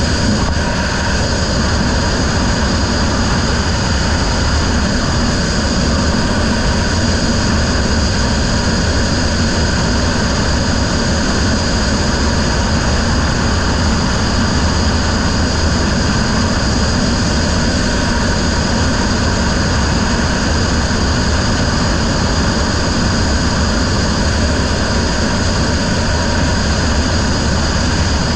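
Racing riverboat's engine running steadily at speed, a loud unbroken drone under a rushing noise, heard at a helmet-mounted camera.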